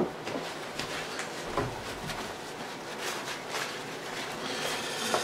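Faint off-camera handling noises: a scattered series of light clicks and taps over a low room hiss.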